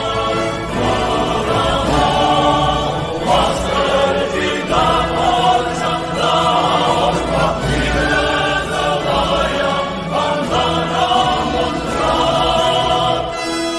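Choral music: a choir singing long held chords that change every second or so.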